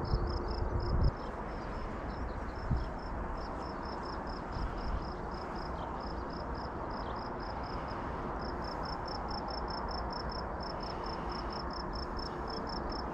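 Open-air ambience: an insect trills in rapid, even high-pitched pulses, about five a second, over a steady low rush. A few low thumps come in the first second.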